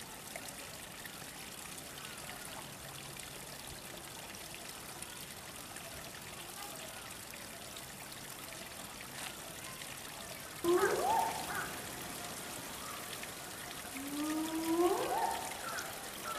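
Steady trickle of running water. About ten seconds in, louder pitched calls sliding upward in pitch break in, a second rising call follows a few seconds later, and short repeated chirps come near the end.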